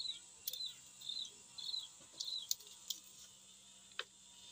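A bird chirping the same short note over and over, about twice a second, stopping a little past halfway, with a few sharp clicks in between and a louder one near the end.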